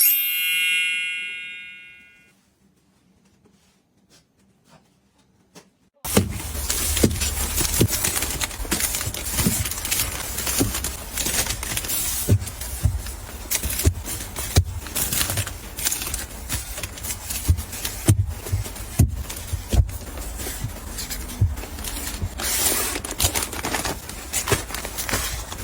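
A bright ding rings out and fades over about two seconds, then near silence with a few faint clicks; about six seconds in, a steady run of clinks, taps and knocks begins as household items are handled and set down.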